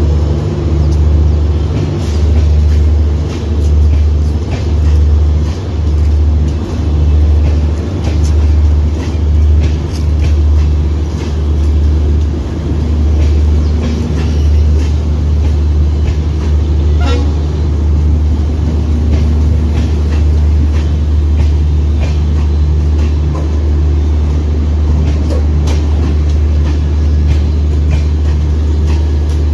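Indian Railways LHB passenger coaches rolling slowly past on the platform line. A loud, deep rumble pulses about once a second for the first ten seconds or so, then settles into a steady drone, with scattered clicks and knocks from the running gear.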